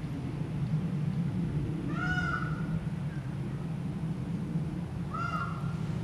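Indian peafowl (peacock) giving two short nasal calls about three seconds apart, each lasting about half a second, over a steady low rumble.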